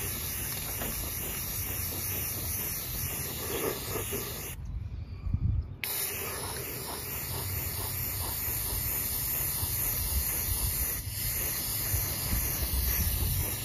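Aerosol spray-paint can hissing steadily as paint is sprayed. The spray stops for about a second roughly five seconds in, with a short low bump in the pause, then starts again.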